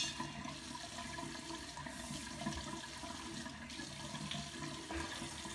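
Water running steadily from a bathroom tap into the sink.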